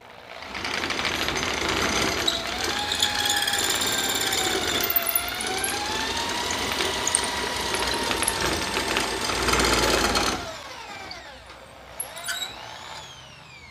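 Electric drill spinning a wooden rod through a dowel jig, where a clamped hand-plane iron shaves it down to a 3/8-inch (10 mm) dowel. The motor whine dips in pitch about halfway, then the trigger is let go about three-quarters of the way in and the drill winds down. There is one short blip of the motor just after.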